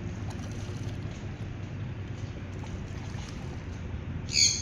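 River ferry's engine running at a steady low hum, with a short, shrill high-pitched squeak near the end that is the loudest sound.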